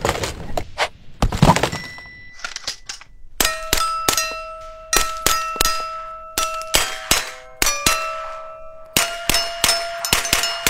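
A few clicks and knocks, then from about three seconds in a quick string of rifle shots striking metal targets, each hit leaving a ringing note of a different pitch so that the strikes play a carol melody.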